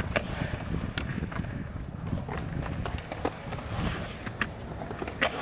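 Skateboard wheels rolling on concrete skatepark transitions, a steady low rumble, with several sharp clacks of the board and trucks striking the coping and ground, the loudest near the end.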